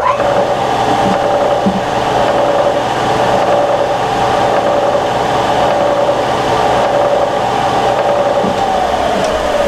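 Electric drill motor running steadily, drilling the punch-marked holes, its pitch falling as it winds down near the end.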